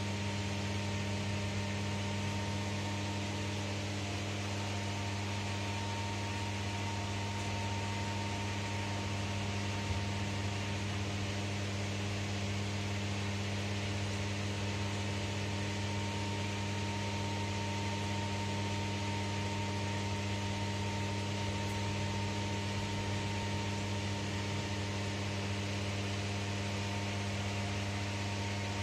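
Steady electrical hum with an even hiss above it, inside an enclosed, climate-controlled Ferris wheel cabin. A faint tick comes about ten seconds in.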